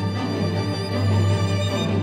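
Solo violin playing over a string orchestra of violins, cellos and double bass, with a low note held steadily underneath.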